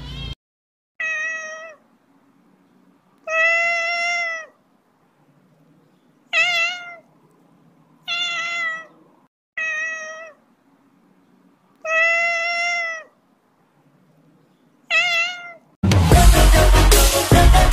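A cat meowing seven times with short silent gaps between the meows. Each meow lasts up to about a second, and a couple of them waver in pitch. Loud electronic music with a heavy beat cuts in near the end.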